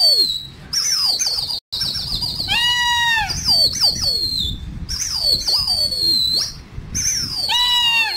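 Birds calling overhead with high whistled notes, many of them gliding down in pitch and repeating over and over. Lower, wavering whistles rise and fall about three seconds in and again near the end.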